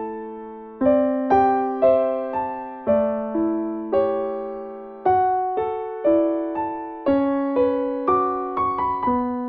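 Solo piano playing a slow, gentle instrumental piece: single notes and chords struck roughly every half second, each ringing and fading before the next.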